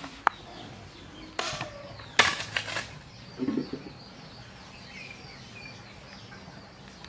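Knife chopping coriander on a plastic cutting board, a few sharp clacks in the first three seconds. Then a dull thud and faint bird chirps.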